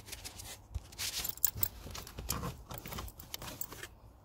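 Scraping, rustling and small clicks of hands pushing thin EL wire into a gap in the car's plastic dashboard trim, with a sharper click about a second and a half in.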